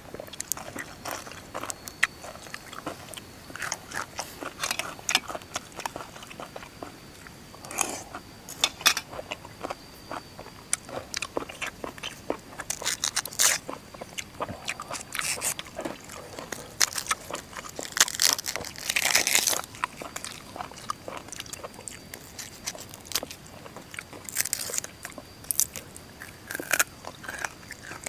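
Close crunchy biting and chewing of raw vegetables, with many irregular crisp snaps and crunches and a few louder bursts.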